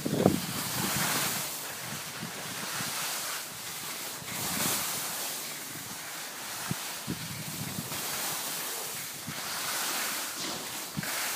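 Skis hissing and scraping over packed, chopped-up snow on a downhill run, swelling and easing with each turn, with wind buffeting the microphone. A few short knocks stand out about two-thirds of the way through.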